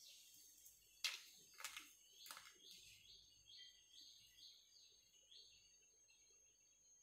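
Three light knocks as fried snack pieces are set down on a plate, followed by a run of faint bird chirps, about two a second.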